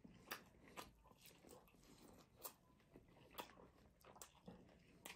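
Faint close-miked chewing of grilled kebab meat: soft, wet mouth clicks and smacks, about six, spaced unevenly.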